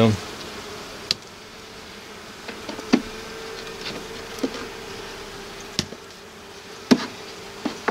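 Honeybee colony buzzing with a steady hum from the open hive, with about six short sharp knocks of wooden hive frames as they are lifted and moved.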